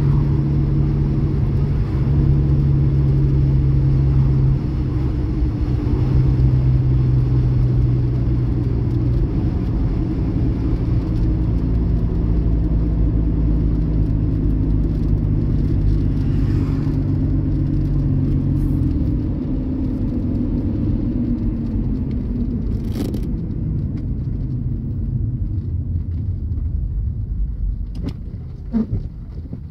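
Car engine running, heard from inside the cabin, held at steady revs under the accelerator with small steps in pitch, then dropping lower and quieter about two-thirds of the way through. A sharp click partway through and a few light knocks near the end.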